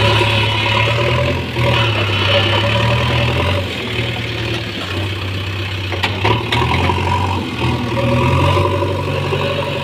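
JCB backhoe loader's diesel engine running under load, its revs dropping and rising again several times as it works. A couple of sharp knocks come about six seconds in.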